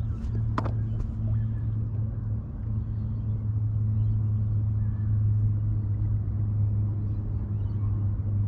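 A boat motor running steadily with a low, even hum, and a single short click about half a second in.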